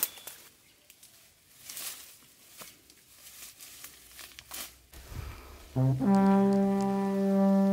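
Faint rustling and scattered snaps of steps through dry bamboo brush. About six seconds in, a loud, brass-like music note slides up briefly and then holds steady.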